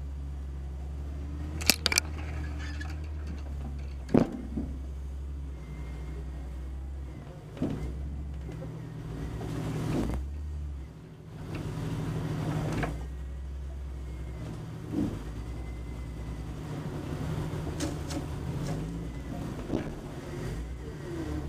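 Jeep engine running low and steady as it crawls over rough trail ground, with several sharp knocks and clunks along the way, a quick pair about two seconds in.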